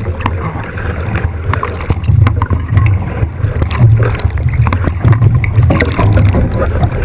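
Onboard sound of an 18ft skiff sailing at speed: a heavy, fluctuating rumble of wind and water rushing past the hull, with scattered short knocks from the boat's fittings.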